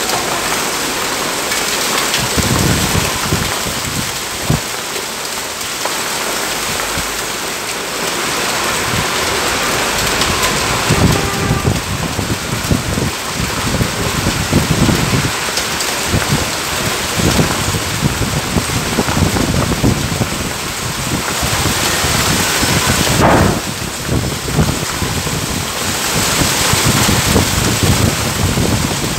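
Torrential rain falling hard on pavement and parked vehicles: a loud, steady, dense hiss, with irregular low rumbling surges under it.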